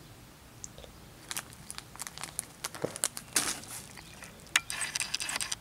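Plastic parts packaging crinkling and rustling as it is handled, in scattered short bursts that become denser near the end.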